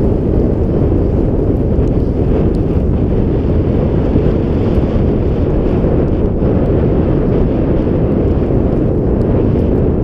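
Steady, loud wind buffeting the camera microphone as it moves down a snowy slope on a snowboard run, a dense low rumble.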